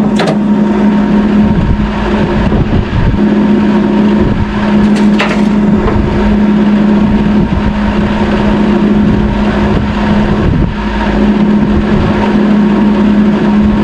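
A loud, steady mechanical drone at one constant pitch, like a motor or engine running at a fixed speed.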